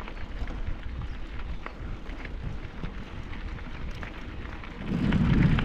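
Wind rushing over the microphone, with scattered small clicks and rattles. It gets louder about five seconds in.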